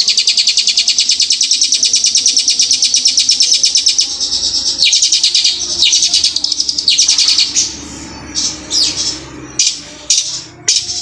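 Caged long-tailed shrike (cendet) singing a long, very fast rolling trill in imitation of the ciblek gunung. The trill breaks off about four seconds in and starts again about a second later. From about seven and a half seconds the song turns to separate sharp, downward-sweeping notes, one or two a second.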